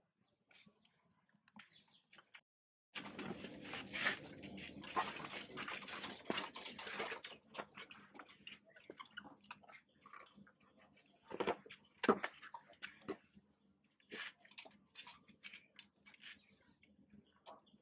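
Long-tailed macaques moving and grooming close by: a dense run of scratchy clicks and rustling that starts about three seconds in, after a near-silent stretch, with a few sharper snaps around the middle.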